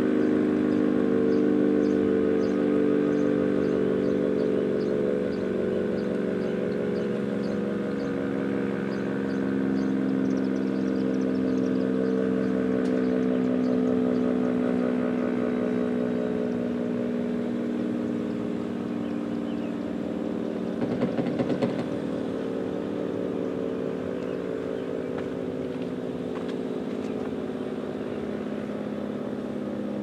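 ACA SuperBanshee outdoor warning siren sounding its steady test tone. The pitch drifts slightly lower and the sound slowly gets quieter. A brief burst of noise cuts in about twenty seconds in.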